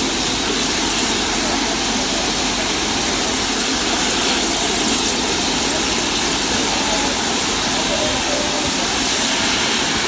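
Steam locomotive blowing off steam through its safety valves: a loud, steady roaring hiss that doesn't let up.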